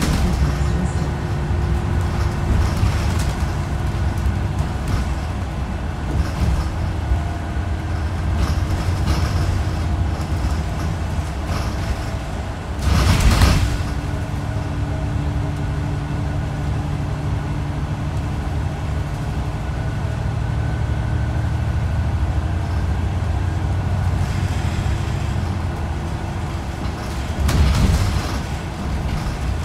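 Inside a moving bus: a steady engine drone and road noise, broken by two short, louder bursts of noise, one about halfway through and one near the end.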